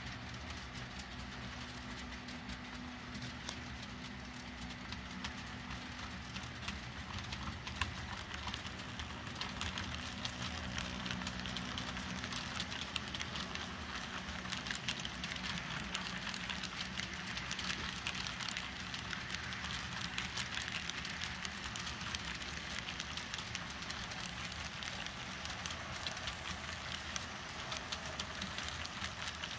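Model railroad freight train rolling past, its wheels clicking steadily over the rail joints and crossing track, with a steady low hum from the locomotives in the first twelve seconds or so.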